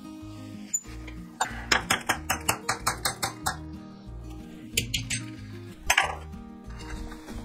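Background music with a run of sharp metallic clinks, about four a second for nearly two seconds, then a couple of single clinks.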